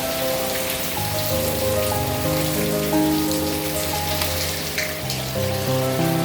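Steady rain falling, with background music of sustained chords that change about once a second.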